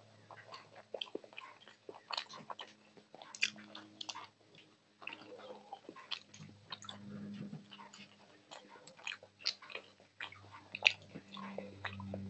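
Close-miked wet chewing and lip-smacking of a person eating rice and curry by hand, a stream of short sharp clicks and crackles, one louder click about eleven seconds in, over a steady low hum.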